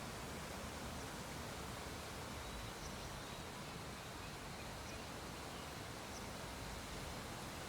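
Faint steady hiss of room tone, with a few faint, sparse high ticks at irregular intervals.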